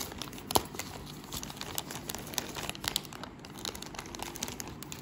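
Plastic film wrapping of a diaper pack crinkling and crackling as it is cut open with scissors and handled, with a sharp click about half a second in.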